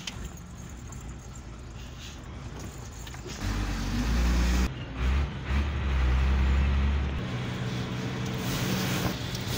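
Hino truck's diesel engine running, heard from inside the cab: a low steady drone that grows much louder about three and a half seconds in, dips briefly twice, then eases back a little.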